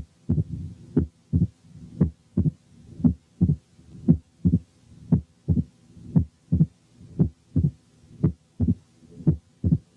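Recorded heart sounds of mitral stenosis through a stethoscope with the bell pressed firmly on the skin: crisp first and second sounds and an opening snap, about one cycle a second. The low mid-diastolic rumble is filtered out by the pressure.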